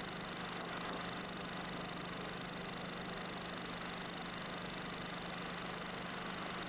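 Steady hiss with a faint low hum, even throughout, with no speech or music.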